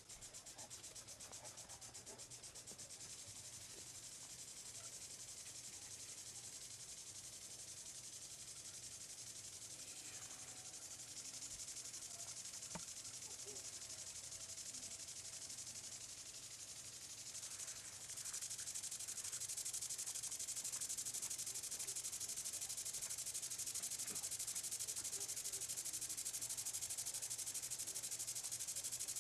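Faint, steady high-pitched chorus of night insects, getting a little louder about two-thirds of the way through, with one faint click a little before halfway. No thunder is heard.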